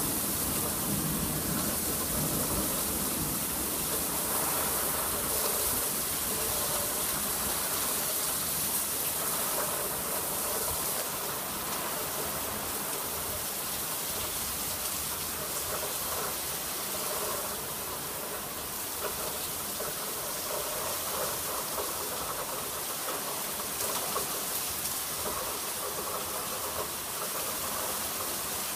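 Steady heavy rain falling in a thunderstorm, an even hiss that eases slightly about a third of the way through.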